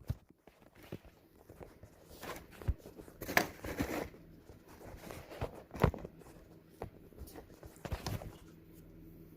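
Small plastic tripod parts being handled: scattered light clicks, taps and rustles, a few sharper knocks among them, over a faint steady hum.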